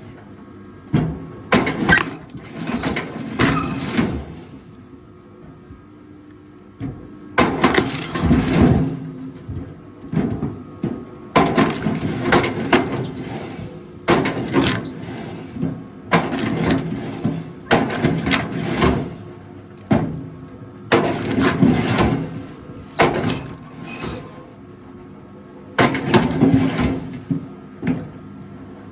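Rail log splitter working through logs: repeated bouts of cracking wood and clattering split pieces, one every few seconds, over a steady machine hum.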